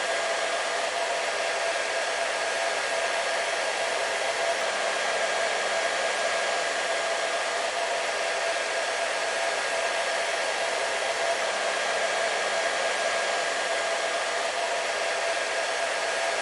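Hair dryer running steadily: an even rush of blown air carrying a constant motor whine.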